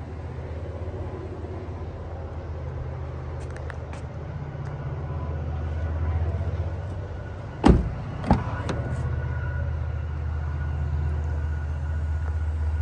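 A Lexus ES330 rear door being unlatched and swung open: two sharp clunks about half a second apart, then a lighter click, over a steady low hum.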